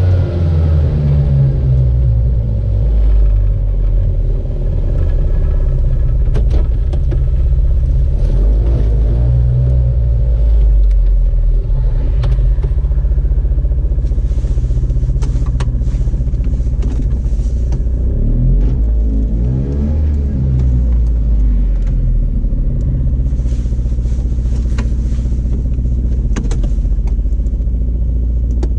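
Piaggio Ape 50's small two-stroke single-cylinder engine running with a steady low rumble and scattered sharp clicks, its pitch shifting briefly about two-thirds of the way in. This is the odd engine sound the owner wants explained.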